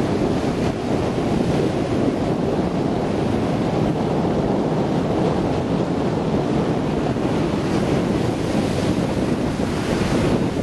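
Strong wind buffeting the microphone over the steady wash of breaking ocean surf.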